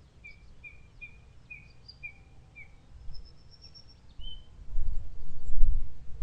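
Wild songbirds singing: a run of about seven short, evenly spaced whistled notes, then a higher brief trill and a single note. A loud low rumble sets in about three-quarters of the way through and covers the birdsong.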